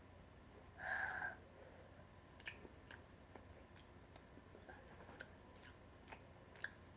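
Quiet chewing of chewy tteokbokki rice cakes: faint, scattered wet mouth clicks and smacks, with one brief louder sound about a second in.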